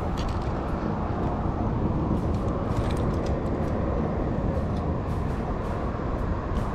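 Steady wind noise buffeting the camera microphone, a low rumble with a few faint clicks over it.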